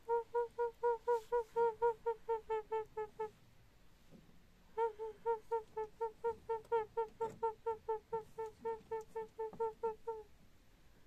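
A woman's voice making rapid, even pulsed notes on a single pitch, about five a second. The notes come in two long runs broken by a pause of about a second and a half.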